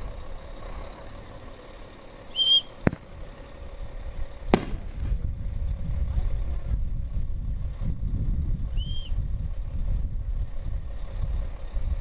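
Two sharp firework bangs about a second and a half apart, a few seconds in. A steady low rumble follows, with a short high chirp just before the first bang and another near the end.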